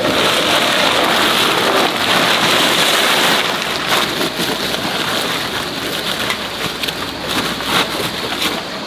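Woven plastic tarpaulin rustling and crinkling as it is pulled and tucked by hand. The rustling is densest for the first few seconds, then lighter, with scattered crackles.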